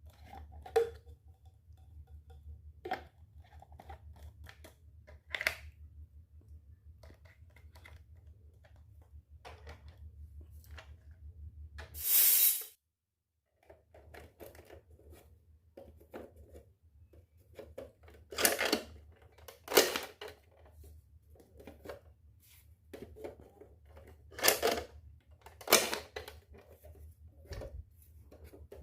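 Unboxing handling sounds of a miniature toy kitchen set: scattered light clicks and taps of small pieces being handled, with several short bursts of packaging tearing, the loudest about twelve seconds in, over a low hum.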